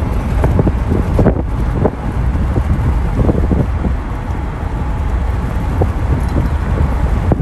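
Wind buffeting the microphone in uneven gusts over the steady road noise of a moving car.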